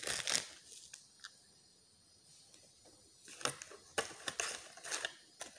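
Packaging being handled: the crinkle of product sachets at the start, then a quiet pause, then scattered light clicks and rustles as the sachets and the cardboard kit box are handled.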